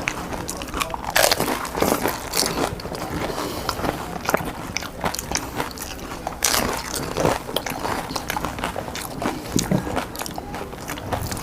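Repeated crunching and chewing of crisp puchka (panipuri) shells being bitten and eaten, close to the microphone.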